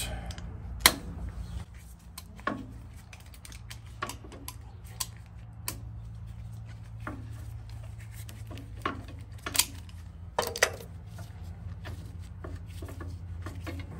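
Scattered metal clicks and clinks of hand-work on an Allis-Chalmers WD45 tractor's clutch-pedal linkage as the threaded rod is turned to lengthen it, with a few sharper knocks about a second in and around ten seconds in, over a steady low hum.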